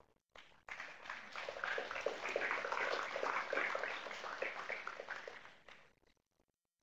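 Audience applauding, many hands clapping. It starts just under a second in and dies away about six seconds in.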